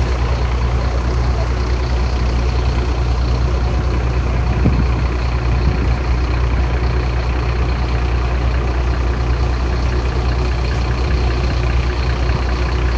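A vehicle engine running steadily with a deep low hum, heard from on board while moving.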